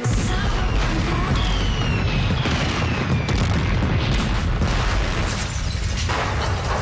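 Loud, deep booms of fireworks and pyrotechnics over music, with thin falling whistles about a second and a half in and a few sharp cracks near the end.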